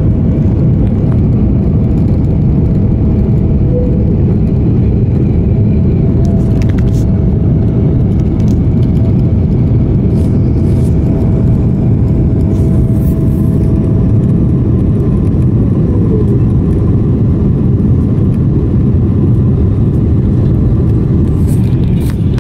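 Cabin noise of a Boeing 777-300ER landing, from its GE90 engines and the airflow: a loud, steady rumble. A thin whine rides on top and falls away about fifteen seconds in.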